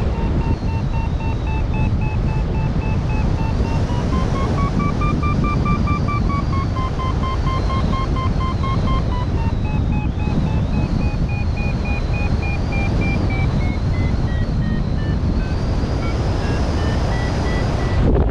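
XC Tracer Maxx variometer sounding its climb tone in short steps of pitch, over heavy wind rush on the microphone. The pitch steps up a few seconds in, sinks slowly through the middle, and rises again near the end, following the climb rate.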